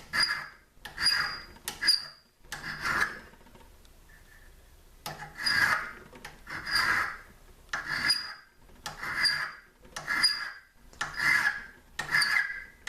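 Single-cut hand file scraping back and forth across a small steel pistol nose cap, about one stroke a second, each stroke starting with a brief high squeal. There is a pause of about two seconds about a quarter of the way in.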